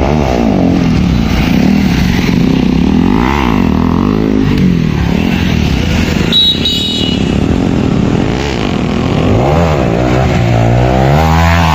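Motorcycle engine accelerating on the road, its revs rising and falling again and again through the gears and climbing steeply near the end. A short high beep sounds a little over six seconds in.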